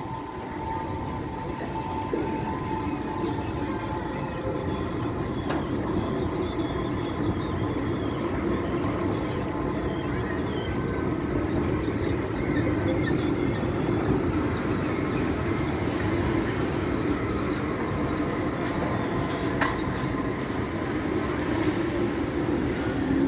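Forchbahn two-car tram train running slowly along curved street track, its wheels rumbling steadily on the rails and growing louder as it passes close by. A couple of sharp clicks come from the wheels crossing the track junction.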